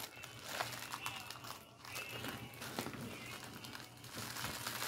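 Clear plastic bag crinkling and crackling irregularly as hands work at its tied top to open it.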